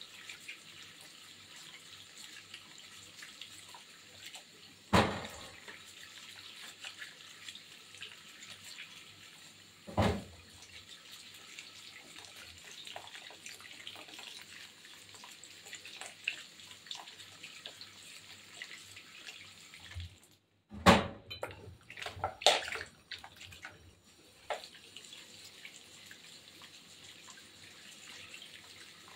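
Kitchen tap running into a stainless steel sink full of tomatoes, with splashing as hands rub and turn the tomatoes in the stream. A few louder knocks stand out: one about five seconds in, one about ten seconds in, and a short cluster about two-thirds of the way through.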